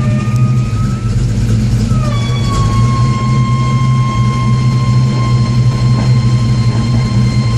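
1989 Ford Mustang under way, its engine and road drone overlaid by a steady whine from the driveline, the unexplained noise in question. The whine creeps up in pitch, drops about two seconds in, then holds steady.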